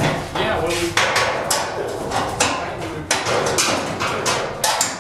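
Sharp metal knocks and clanks from the metal panels of a biogas digester mould being fitted and hammered together, coming irregularly several times a second, each with a short ringing tail.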